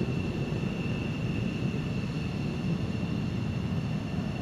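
Saab JAS 39 Gripen's jet engine running at idle on the ground: a steady rumble with a high whine held on one pitch.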